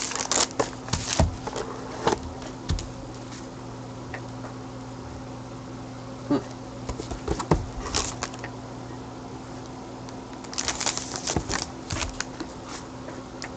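A foil-wrapped trading card pack and its cardboard box handled by gloved hands: bursts of crinkling and rustling with quieter stretches between, over a steady low hum.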